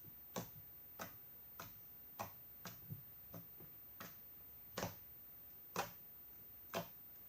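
Blue glittery slime of clear-type consistency being pressed and worked by hand, giving about a dozen sharp clicks spaced roughly half a second to a second apart as trapped air pops.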